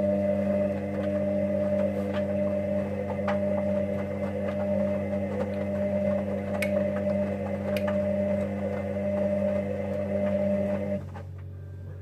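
Hoover Dynamic Next washing machine running with a steady, even hum and a few light clicks. The hum cuts off suddenly about eleven seconds in.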